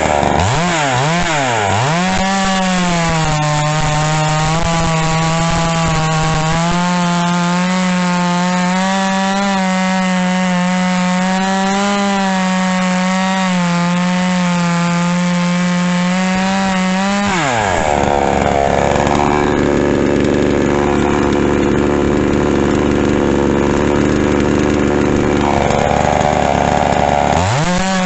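Two-stroke gasoline chainsaw running at high revs and cutting wood, its engine pitch dipping sharply a few times at the start, then holding a wavering high note. About two-thirds through the note drops to a lower, fuller sound for around ten seconds, then climbs back near the end.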